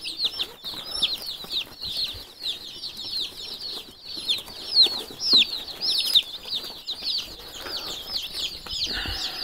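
A brood of day-old Freedom Ranger chicks peeping constantly: many short, high peeps, each sliding downward in pitch, overlapping into a continuous chorus.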